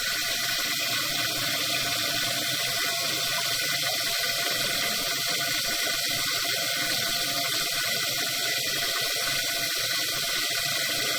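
Water running steadily from a faucet, an even rushing sound at a constant level.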